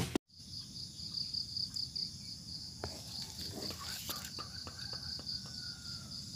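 An insect chirping in a steady, pulsing high note, about five pulses a second. A few soft clicks and knocks come in from about three seconds in.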